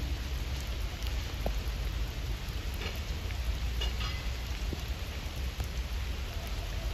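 Heavy rain falling steadily, with a few drops ticking close by about three and four seconds in, over a constant low rumble.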